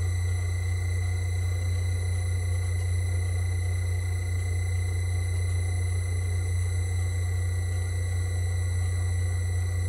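Myford Super 7 lathe running at low speed: a steady motor hum with a faint high whine above it, while a slot drill in a tool-post collet chuck feeds into the spinning aluminium. The cut itself is very quiet.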